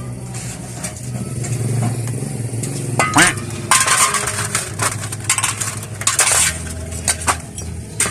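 Metal tools and engine parts clicking and clinking as the camshaft is taken out of a motorcycle's cylinder head, busiest in the middle, over a steady low hum.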